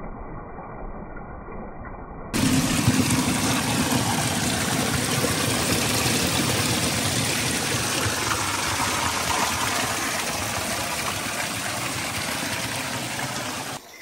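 Spring water spilling from a rock face and splashing over stones: a steady rushing close to the microphone. It is muffled and quieter at first, then jumps abruptly to full loudness about two seconds in.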